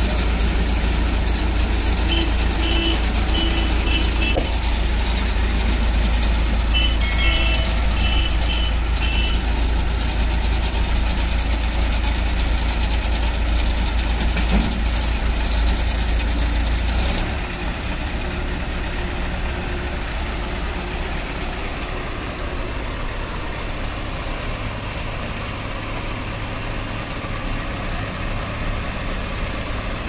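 Heavy diesel engines of an asphalt paver and a JCB 3DX backhoe loader running steadily at low revs, with a deep rumble that drops to a lighter, quieter running note about 17 seconds in. Two short runs of high beeps sound in the first ten seconds.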